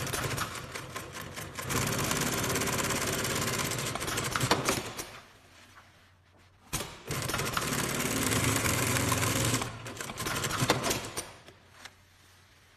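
Computerized twin-needle walking-foot industrial sewing machine stitching through three layers of material. It runs in two bursts of about five seconds each with a silent pause between them, and each run ends with a few clicks.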